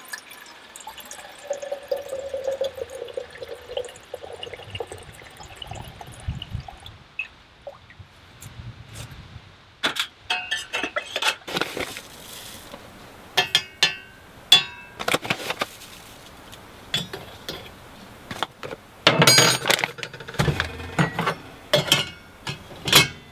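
Water running from a cooler spigot into a stainless steel percolator pot for the first few seconds. Later come a string of sharp metal clinks and rustling as a bag of ground coffee is opened and the percolator is handled.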